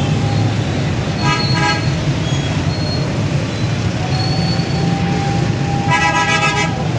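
Two vehicle horn blasts, one about a second in and a longer one near the end, over the steady low rumble of a motorcycle engine and dense road traffic.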